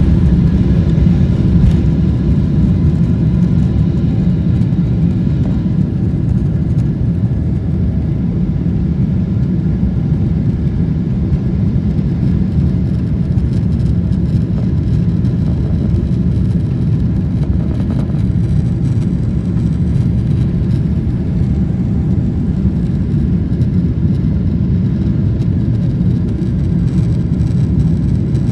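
Jet airliner's engines running under takeoff or climb power, heard as a loud, steady, deep rumble from inside the cabin.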